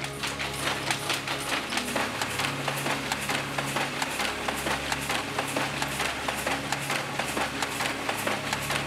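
Shuttle loom weaving selvedge denim, clattering in a fast, even rhythm of about three clacks a second over a steady low hum.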